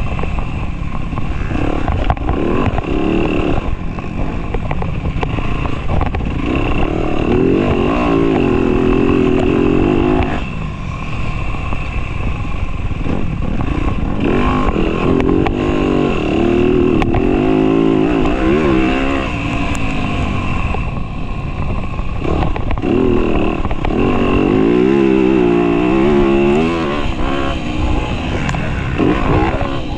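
Dirt bike engine revving hard while being ridden, heard close from the rider's chest mount. Its pitch climbs and drops again and again with the throttle, easing off twice along the way.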